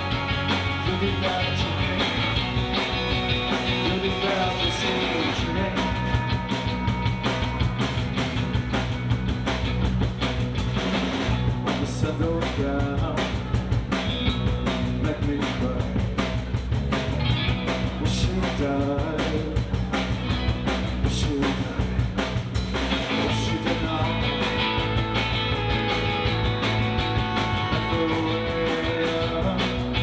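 Live rock band playing: drum kit, electric guitar and electric bass, with a flugelhorn playing a melody over them at the start.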